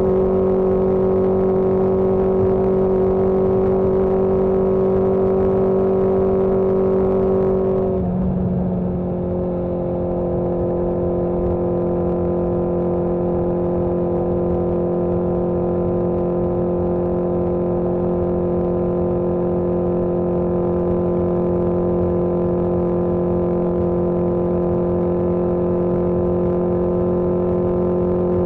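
1981 Yamaha XJ650 Maxim's air-cooled inline-four engine running steadily on the road. About eight seconds in, its note drops a little and the level dips briefly, then it settles into a steady run again.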